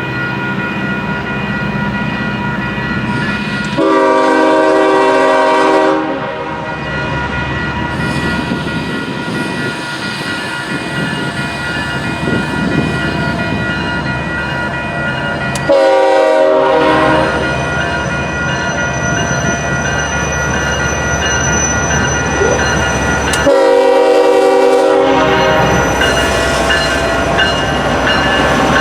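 Diesel freight locomotive's air horn sounding three blasts, the first one longer, each a chord of several notes, over the steady rolling noise of a passing freight train.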